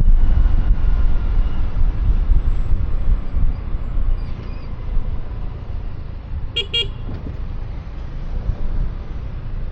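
Wind rumbling over a helmet-mounted microphone on a moving motor scooter, with road traffic around, easing a little about halfway through. About six and a half seconds in, a vehicle horn gives two quick beeps.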